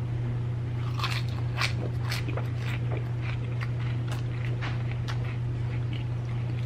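Close-up crunching and chewing of crispy fried chicken: a quick irregular run of crisp crunches starting about a second in, over a steady low hum.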